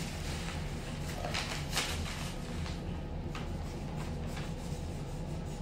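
Sheet of paper rustling, then a few short scratchy strokes of a marker on paper, over a steady low hum.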